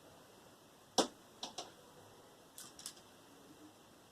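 A sharp click about a second in, followed by a few fainter clicks and ticks: small parts of a microwave's small synchronous motor being handled as its magnet is taken out.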